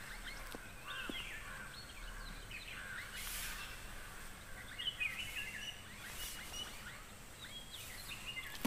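Forest ambience of several birds chirping and calling in short rising and falling notes, over a steady faint hiss.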